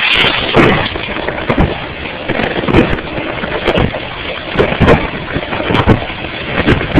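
Dishwasher running, heard from inside the tub through a plastic freezer bag: water spraying and splashing in a loud, rushing wash, with irregular heavier slaps of water hitting the bag.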